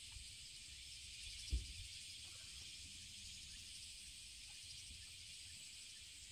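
Steady high hiss of insects droning around the paddy field, with one brief low thump about one and a half seconds in.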